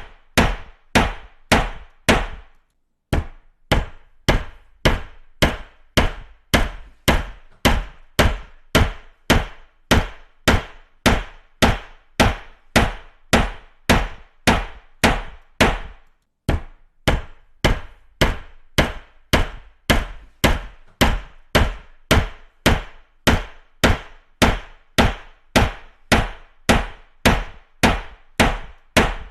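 Hammer striking repeatedly at a steady pace of about two blows a second, each blow a sharp knock with a short ring, with brief pauses about two and a half seconds in and again about sixteen seconds in.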